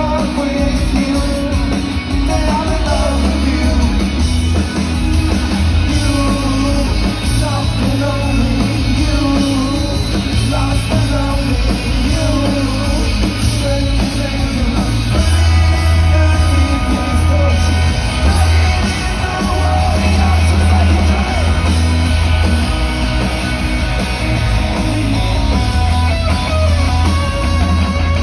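Live rock band playing full on, with a lead vocalist singing over guitars, drums and heavy bass, heard from the audience through a phone microphone.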